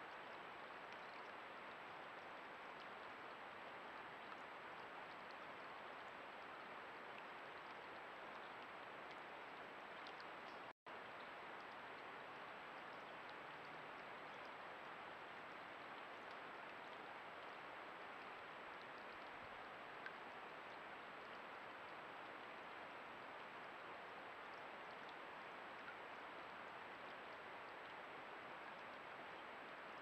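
Faint, steady hiss with a thin high electronic whine, the self-noise of a trail camera's microphone and electronics; the sound drops out briefly about eleven seconds in where one clip ends and the next begins.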